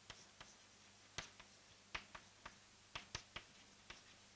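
Chalk tapping and scratching on a blackboard as words are written: about nine faint, sharp taps at irregular intervals over near silence.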